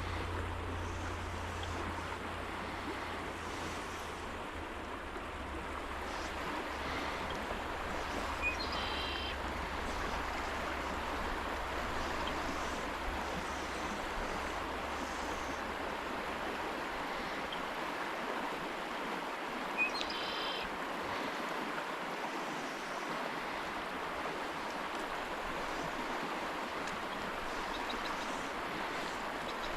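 Stream water rushing steadily, with two brief high chirps about eleven seconds apart.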